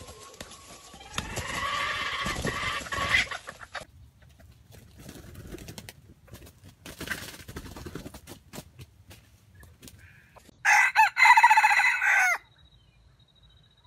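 Junglefowl rooster crowing once, a short loud crow of under two seconds about eleven seconds in, after softer calls in the first few seconds.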